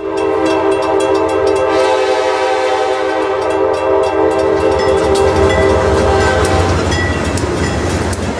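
Diesel locomotive air horn sounding one long blast that fades out about six and a half seconds in. Under it and after it, the locomotive's low engine rumble and wheel clicks on the rail joints as the train passes.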